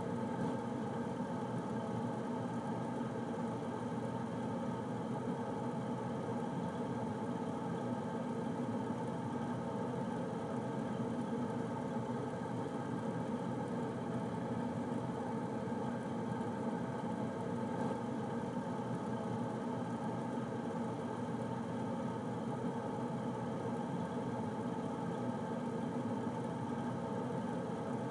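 Air conditioner running with a steady hum of several fixed tones over a constant whooshing noise, unchanging throughout.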